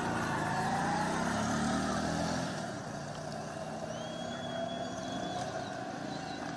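A motor vehicle's engine running, rising in pitch over the first two seconds, then fading after about two and a half seconds as it draws away.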